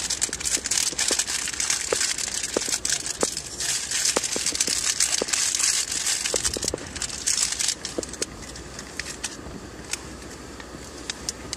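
Crinkling and rustling of plastic packaging being handled, with many small clicks. The dense rustle eases about eight seconds in, leaving only occasional clicks.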